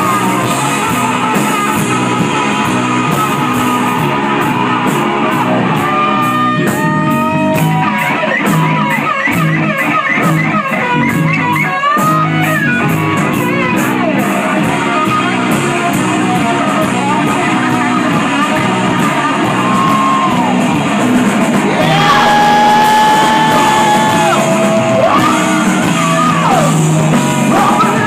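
Live hard rock band in a club: a distorted electric guitar plays a lead with bent and wavering notes over bass, drums and steady cymbal strokes. About 22 s in, the band gets a little louder and a singer comes in with long held high notes.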